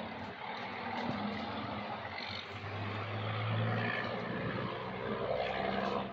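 Low, steady engine hum of a motor vehicle, growing louder through the middle and again near the end.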